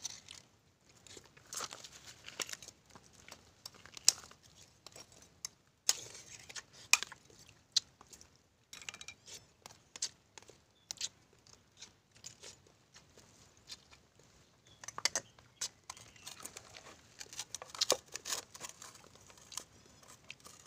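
Sea urchin being eaten: a metal spoon scraping and clicking against the spiny shell and a plastic dish, with chewing, heard as irregular sharp clicks and short crunches.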